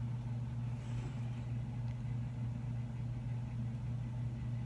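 Steady low hum, unchanging throughout.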